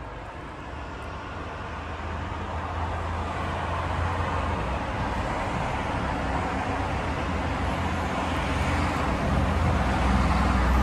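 Street traffic noise: a steady motor-vehicle rumble that grows gradually louder.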